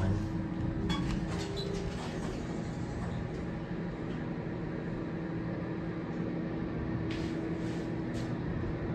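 Otis hydraulic elevator running between floors: a steady hum with a constant low tone. A few light clicks come in the first two seconds.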